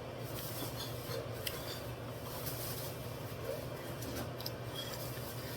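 Steady low hum of a kitchen exhaust vent fan running, with a few faint light clicks and scrapes.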